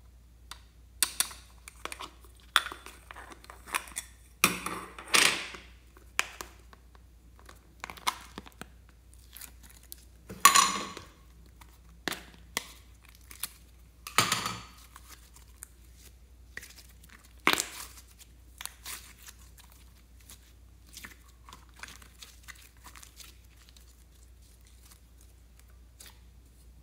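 Hands handling plastic slime tubs and pulling and squeezing soft yellow clay slime: a run of clicks, crackles and tearing sounds, with louder handfuls every few seconds, growing sparser near the end.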